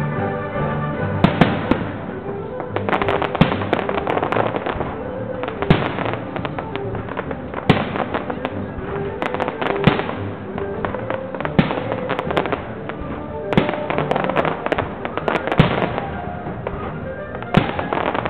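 Aerial fireworks shells bursting with sharp bangs about every two seconds, several followed by bursts of crackling, over music that plays throughout.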